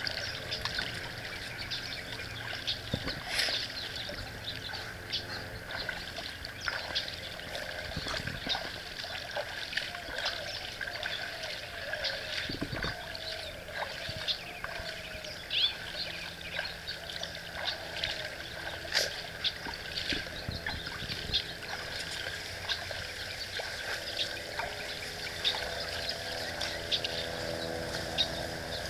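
Outdoor ambience: a steady high hiss with many small scattered ticks and scrapes, over a faint low hum.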